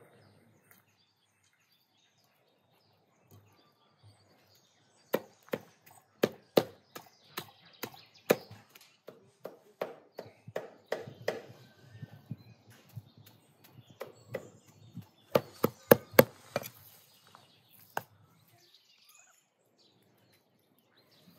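Meat cleaver chopping raw meat on a wooden log chopping block, mincing it by hand: sharp strikes about two a second in uneven runs. The chopping starts about five seconds in and stops a few seconds before the end.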